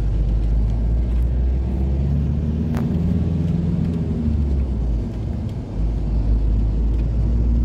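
Road and engine noise heard inside a moving vehicle: a steady deep rumble, with a short tick about three seconds in.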